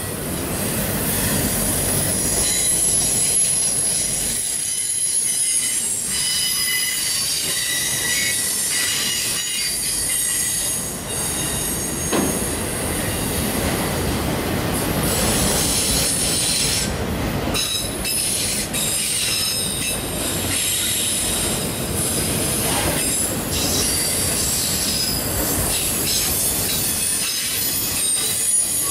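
A train rolling past with its wheels squealing against the rails: thin, high squeals that shift and come and go over the steady rumble of the cars.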